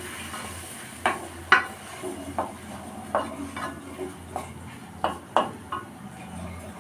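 Wooden spatula stirring and scraping thick tomato and onion paste in an aluminium kadai, knocking sharply against the pan about every half second.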